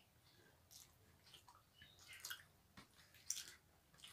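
Faint, wet, sticky squishing and clicking as fingers mix and knead boiled rice with dal and fish curry on a plate, with soft chewing; a sharper smack about three seconds in.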